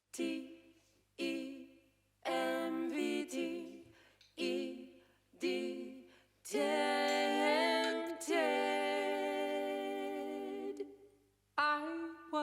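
Music carried by a wordless vocal melody: a few short phrases, then longer held notes that bend in pitch.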